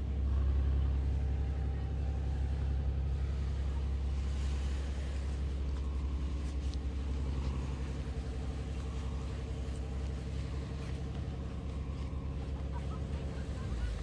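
A motor vehicle's engine running steadily: a low, even rumble with a faint hiss above it.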